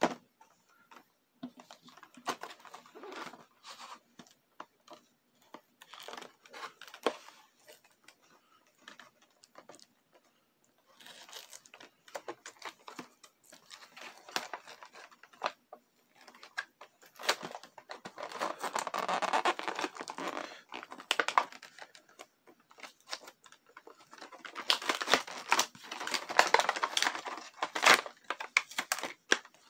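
Cardboard and plastic toy packaging of a Beyblade single pack being handled and torn open: scattered clicks and crinkles, with two longer, louder spells of crinkling and tearing about two-thirds of the way in and near the end.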